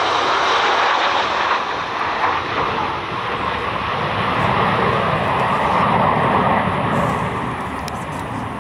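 Six Blue Angels F/A-18 Super Hornets, twelve GE F414 jet engines, flying over in formation: a steady jet roar that fades a little toward the end.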